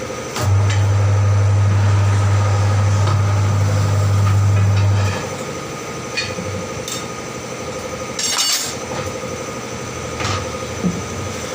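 An electric motor-driven workshop tool hums steadily for about four and a half seconds, then stops; scattered metal clinks and knocks follow, with a short hissing or rattling burst about eight seconds in.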